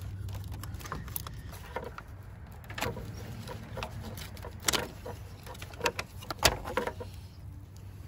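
Hard plastic battery cover and tray on a Harley-Davidson Electra Glide being worked loose and lifted out by hand: scattered sharp plastic clicks and knocks over a steady low hum.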